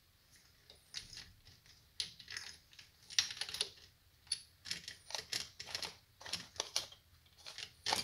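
Irregular metallic clicks and clinks of a Suzuki Vinson ATV engine's timing (cam) chain being worked off its sprockets and pulled out of the open crankcase.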